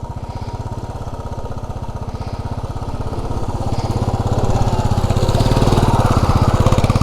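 Motorcycle engine running at low revs through a shallow water crossing, a steady, even beat of exhaust pulses that gets louder from about four seconds in.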